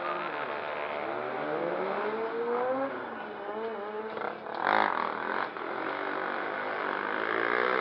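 Sport quad's engine revving up and down through a stunt turn. A short louder rasp comes about halfway through and another near the end.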